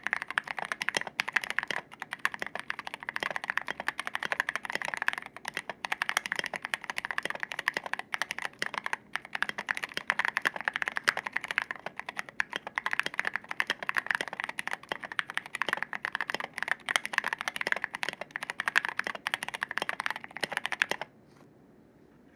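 Continuous fast typing on a custom mechanical keyboard: Zealios V2 tactile switches, very thinly lubed, with C3 stabilizers, an acrylic case and OSA keycaps, giving a thocky sound. The typing stops shortly before the end.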